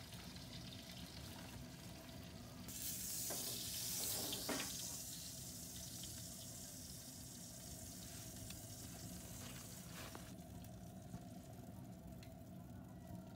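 Hot seared pork belly slices sizzling on a stainless steel tray. The sizzle swells louder for a couple of seconds about three seconds in, with a few light metal clicks of tongs on the tray.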